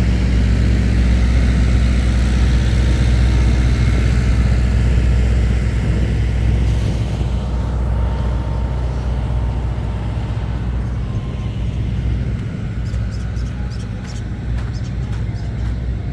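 A large engine running close by, a steady low rumble that fades after about six or seven seconds, leaving general street noise.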